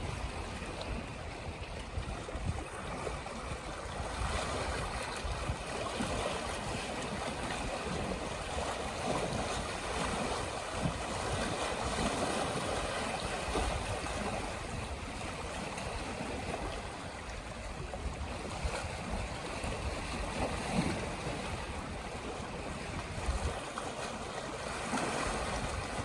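Sea water washing and lapping in small waves, with wind buffeting the microphone in low rumbles.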